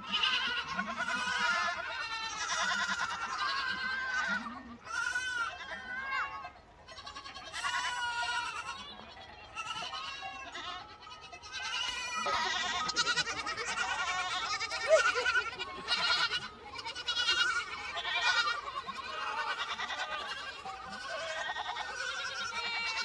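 A large herd of goats and their kids, with some sheep among them, bleating continuously. Many calls overlap, with a short lull partway through.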